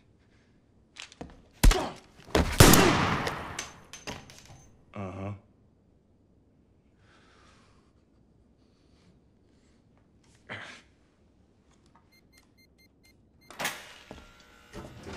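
Film sound effects of blows or impacts in a small room: a sharp thunk, then a much louder heavy impact that dies away over about a second and a half, followed by a brief low sound. Near the end come further knocks and clatter.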